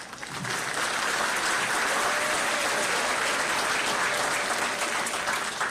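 Audience applauding: dense, steady clapping from a large crowd that builds within the first half second and dies away near the end.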